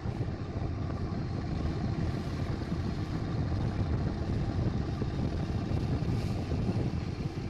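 A small fishing boat's engine running steadily under way, a continuous low rumble mixed with the rush of the sea.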